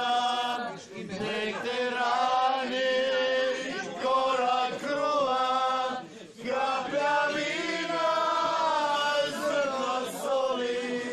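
A group of people singing together unaccompanied, in long held phrases with short breaks about a second in and again after six seconds.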